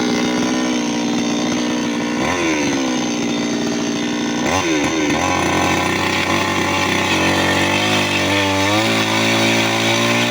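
New West 598X two-stroke chainsaw engine running hard, its pitch dropping sharply and recovering twice in the first half, then running at a lower speed with another dip near the end.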